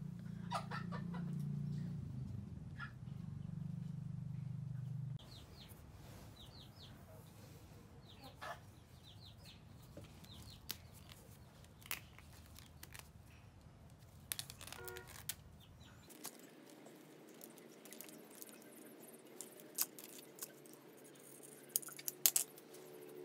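Chickens clucking, with a steady low hum for the first five seconds. Scattered light clicks and taps come from the sword as its handle wrapping is worked off, most of them near the end.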